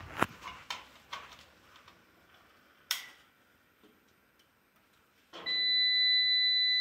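A few switch and plug clicks, then a wall-mounted NRP home UPS (inverter) gives one long, steady electronic beep, starting about two thirds of the way in, as it is switched on and its display lights up.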